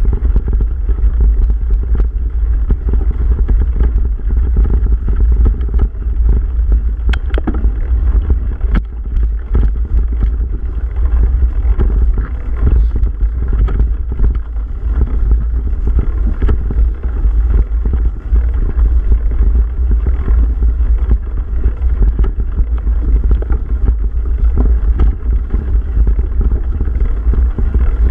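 Mountain bike riding over a leaf-covered dirt trail, heard through a bike- or helmet-mounted camera: a steady low rumble of wind buffeting the microphone and tyres rolling, with scattered clicks and rattles from the bike.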